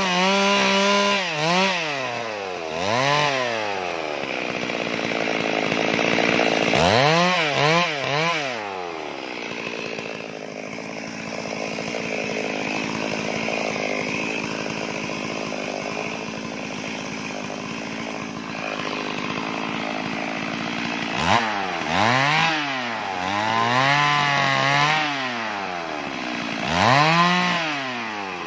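Stihl 382 two-stroke chainsaw ripping planks lengthwise, revving up and down in repeated surges. Around the middle it runs lower and steadier for about ten seconds, then surges several times again near the end.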